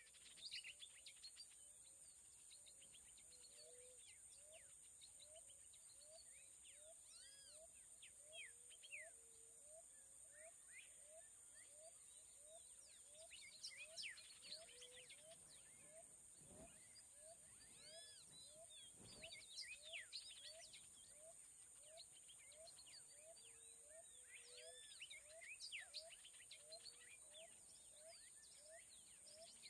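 Faint outdoor nature ambience: several birds chirping and twittering, a lower call repeating about every three-quarters of a second, over a steady high-pitched hum.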